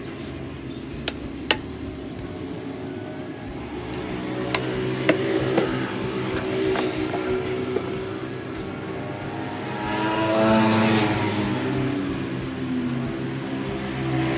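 A motor engine running steadily, swelling louder about ten seconds in, with a few sharp clicks in the first half.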